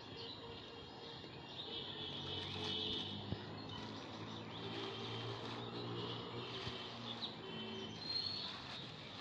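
Birds chirping and whistling over the steady hum of a motor vehicle's engine, which swells and fades over several seconds as it passes.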